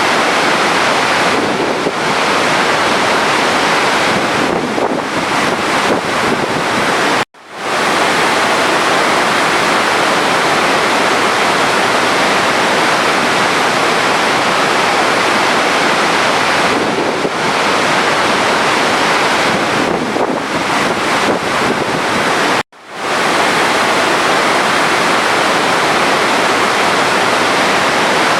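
Steady rush of running water. It cuts out abruptly twice, about 15 seconds apart, and fades straight back in each time.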